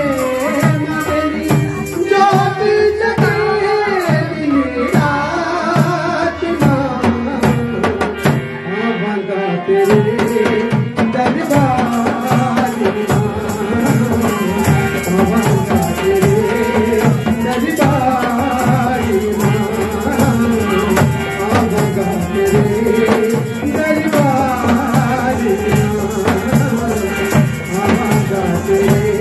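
Live Himachali folk music for a dance: a steady hand-drum beat under a wavering melodic line.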